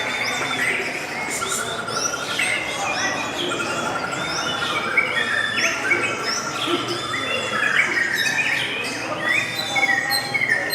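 Several lovebirds chattering together in a dense stream of overlapping high chirps, with rapid trills among them.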